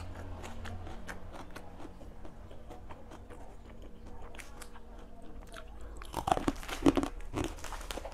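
Close-up mouth sounds of a person chewing food, with small crunches throughout and a run of louder crunchy bites about six seconds in.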